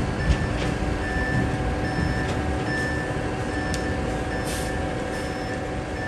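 Diesel engines of concrete mixer trucks running with a steady rumble, while a reversing alarm beeps repeatedly and a few metallic clanks come through.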